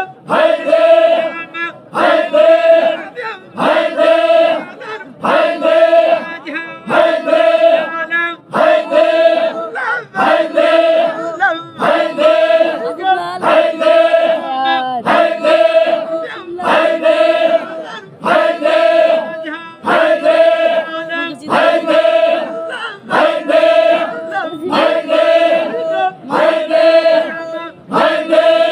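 Zikri chogan devotional chanting: a group of men chanting in unison, the same short phrase on the same notes repeated about every second and a half.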